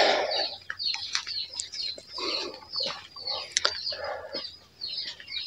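Chickens clucking, mixed with footsteps crunching over dry leaves and sandy ground in short irregular bursts.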